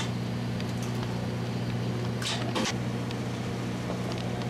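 Steady low mechanical hum of a party fishing boat's onboard machinery, with two short hisses a moment apart about halfway through.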